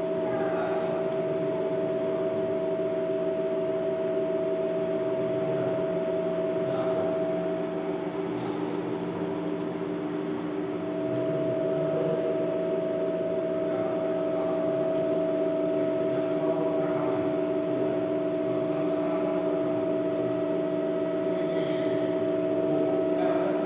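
CNC lathe running while its tool scrapes the surface of a workpiece: a steady machine whine at several pitches, the highest of which drops out for a few seconds about eight seconds in.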